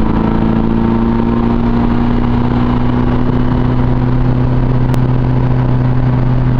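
Steady low mechanical hum, like an engine or machine running at a constant speed, holding one pitch without change.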